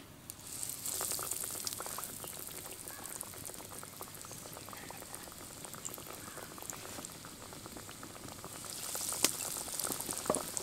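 Breadcrumb-coated chicken cutlets sizzling and crackling in hot refined vegetable oil in a kadai as they go in one at a time. The sizzle starts about half a second in and swells again near the end, with one sharp tick.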